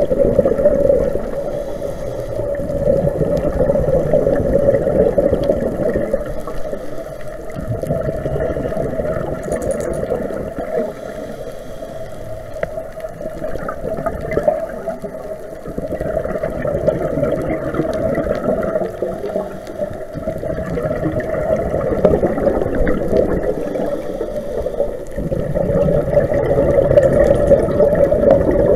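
Underwater gurgling and rushing of scuba exhaust bubbles, heard muffled through the camera's underwater housing, swelling and fading every four to five seconds with the diver's breathing.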